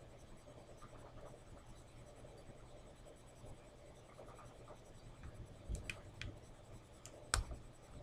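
Faint scratching of a hook pick working the pins inside a laminated-steel Master Lock padlock held under a tension wrench, with a few sharp clicks in the last few seconds, the loudest near the end.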